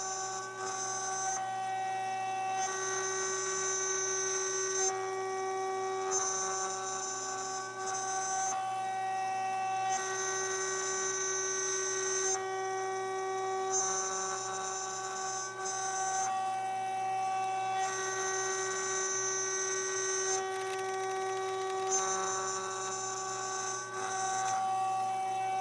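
OneInfiniti CNC router cutting wood: the spindle gives a steady whine over the dust-extraction vacuum, with its tones shifting every couple of seconds as the cutter changes direction along the pocket and contour.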